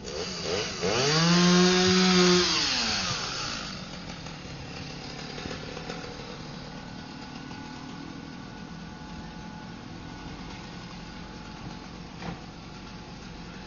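A chainsaw revved up to full speed, held there for about a second and a half, then let back down. A steadier, quieter background follows, with a single short knock near the end.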